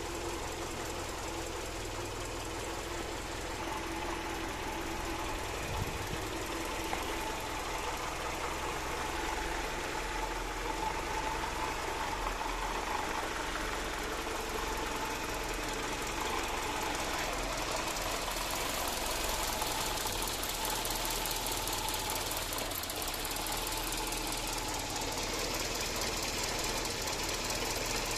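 Mercedes-Benz M102 2.0-litre four-cylinder engine, running on home-built electronic fuel injection, idling steadily as it warms up, its belt-driven cooling fan turning.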